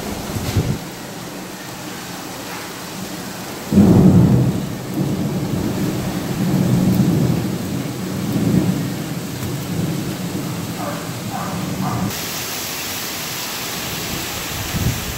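Heavy rain pouring down, with a sudden peal of thunder about four seconds in that rumbles on for several seconds. After the rumble dies away the rain's hiss is brighter and louder.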